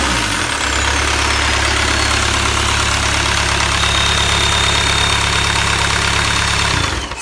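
VW AAZ 1.9-litre four-cylinder turbo diesel idling steadily, with a high whistle falling in pitch over the first two seconds as the revs settle. The engine is shut off about seven seconds in and runs down to a stop.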